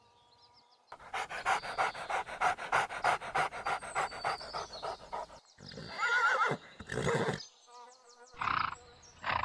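Chickens clucking: a run of quick, even clucks, then louder drawn-out squawks with a falling pitch and a few short calls.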